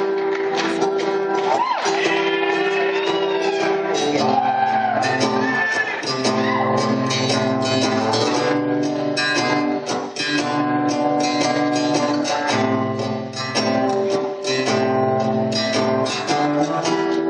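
Acoustic guitar strummed in a steady, repeating chord pattern: the instrumental intro of a song, before the vocals start.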